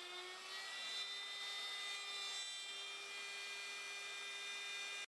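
Router running under load as its 7° by 19 mm dovetail cutter cuts tail sockets in a drawer side: a steady motor whine that rises slightly in pitch about half a second in, then holds. It cuts off suddenly near the end.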